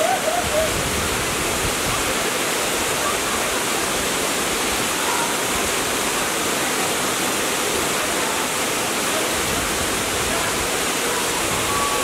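The Borov Kamak waterfall, a tall narrow cascade falling down a rock cliff, rushing steadily with an even, unbroken sound.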